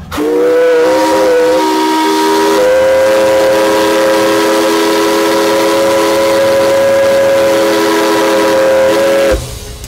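Steam whistle of the paddle steamer Stadt Wehlen, worked by a foot pedal, sounding one long blast of about nine seconds as the start signal. It is a chord of several tones at once over a hiss of steam, its top note wavering for the first two seconds before holding steady, and it cuts off sharply near the end.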